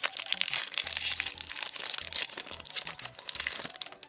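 Foil booster pack wrapper crinkling and crackling as it is handled and opened.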